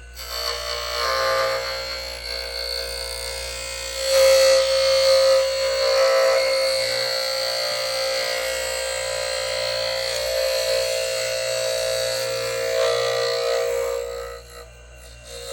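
Foley 355 sharpener's grinding wheel running and grinding a pair of planer blades in a pass, a steady whine. It gets louder about four seconds in, drops briefly near the end, then picks up again.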